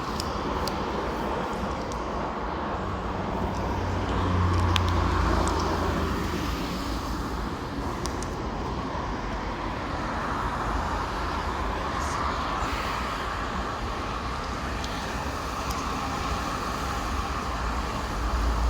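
Steady toll-road traffic noise, with one vehicle passing louder and deeper about four to six seconds in.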